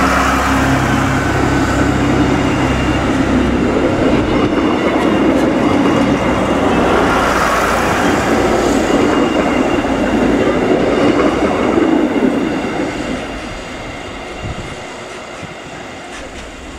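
DB Class 628 diesel railcars passing close by and moving away: a steady low drone from an underfloor diesel engine for the first few seconds, then the noise of the wheels running over the rails, which fades over the last few seconds as the train leaves.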